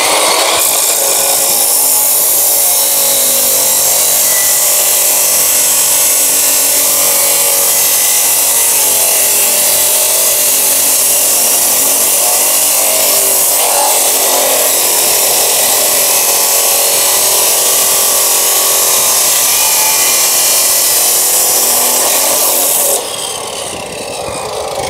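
Hukan CM2250 2250 W abrasive cut-off saw with its disc grinding through a rectangular steel tube: a loud, steady, dense grinding noise. About two seconds before the end the cut finishes, the level drops, and the motor runs on freely.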